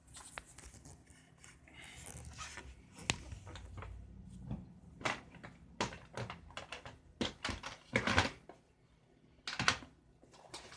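Rummaging through a stash of parts: rustling of boxes and packaging, then a run of scattered knocks and clicks as items are moved and picked through, the loudest about halfway and near the end.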